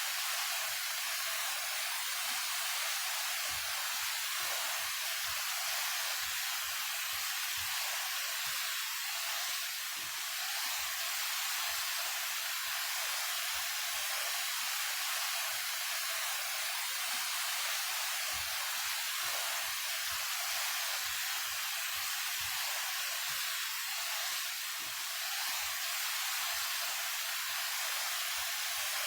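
Daehye Falls, a 28 m waterfall, pouring steadily: an even, unbroken rush of falling and splashing water, heavy in the hiss and light in the low rumble.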